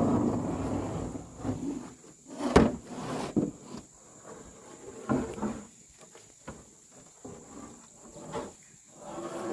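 Scattered knocks and clatter, with one sharp knock about two and a half seconds in and a faint steady high-pitched tone underneath.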